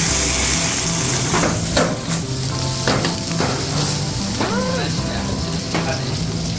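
Stir-fry sizzling hard in woks over high gas flames, a steady loud frying hiss, with a few short metal clanks of the wok and utensils.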